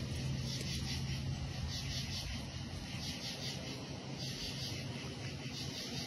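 Crickets chirping in a steady, rapidly pulsing chorus, with a low steady hum underneath.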